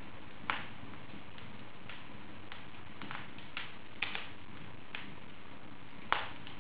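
Wood fire burning in an open fireplace, with a steady low hiss of burning and sharp crackles and pops at irregular intervals; the loudest pops come about half a second in and near the end.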